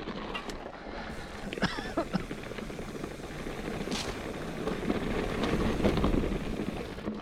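Mountain bike rolling over a loose dirt and rock trail: steady tyre noise and rattling with scattered knocks, wind on the microphone, and a brief squeak about one and a half seconds in.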